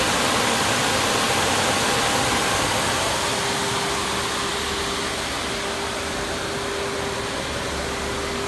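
Naxos-Union CNC cylindrical grinder running: a steady rushing noise with a constant mid-pitched hum. The hum grows clearer about three seconds in, as the overall level dips slightly.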